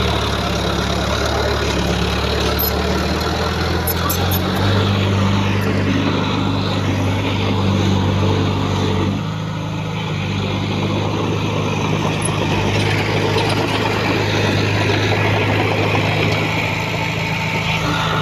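Heavy diesel earthmoving machinery running under load, the engine note stepping to a new speed about four seconds in and again about nine seconds in.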